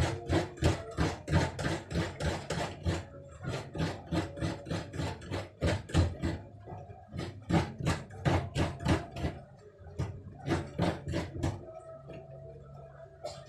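Coconut meat being scraped out of the shell by hand on a grater: quick, regular scraping strokes, about four a second, with a few short breaks, stopping near the end.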